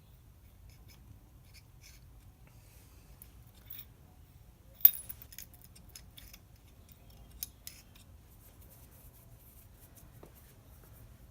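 Small metal parts being handled: scattered light clicks and clinks, the sharpest about five seconds in and two more a couple of seconds later, over a faint low hum.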